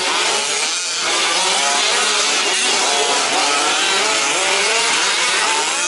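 Several 1/5-scale four-wheel-drive RC trucks racing, their small two-stroke petrol engines overlapping as they rev up and ease off, each at its own pitch.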